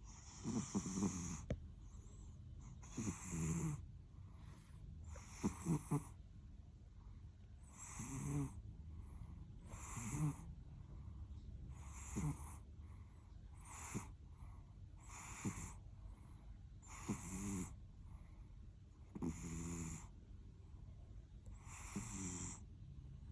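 A sleeping cat snoring, about eleven snores in a steady rhythm, one every two seconds or so.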